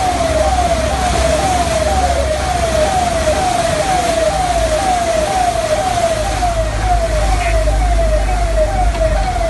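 A siren-like electronic warning tone sounding over and over, each note falling in pitch, about two and a half times a second. Under it are the low rumble of a vehicle's engine and the noise of churning floodwater.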